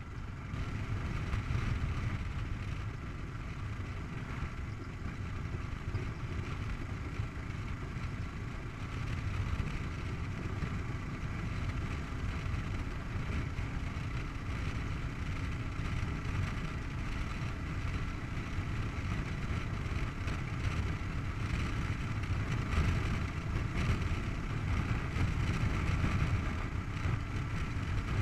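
Kawasaki KLR 650's single-cylinder four-stroke engine running at steady cruising speed on the open road, a continuous low rumble that grows a little louder in the second half.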